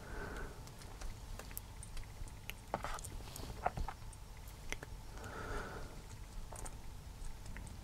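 Small screws being driven with a Phillips screwdriver into a plastic servo mount: faint, scattered clicks and scrapes of the tool and screws on plastic.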